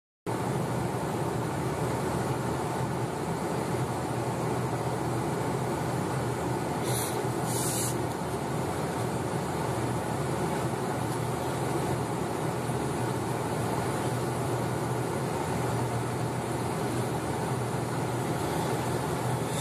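Steady engine and road noise heard from inside a moving car's cabin, with a low even hum under it, cutting in abruptly just after the start. Two short hiss-like bursts come about seven and eight seconds in.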